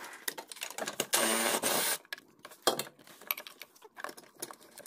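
A small cordless power tool whirs for just under a second, about a second in, with scattered clicks and knocks of tools and plastic parts being handled around it.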